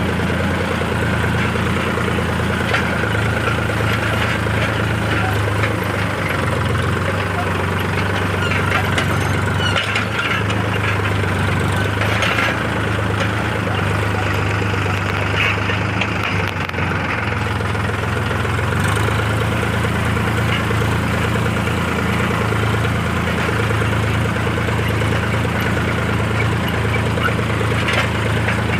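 Mahindra Arjun 605 combine harvester running steadily, its engine giving a constant low drone under a thin steady whine from the machinery.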